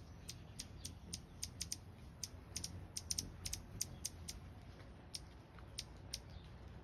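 Hummingbird giving a string of sharp, high chip notes, irregularly a few per second, which stop shortly before the bird settles. A faint low rumble runs underneath.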